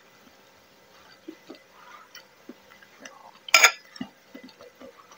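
Spoon clinking and tapping against a bowl in small scattered ticks, with one sharper, louder clink about three and a half seconds in.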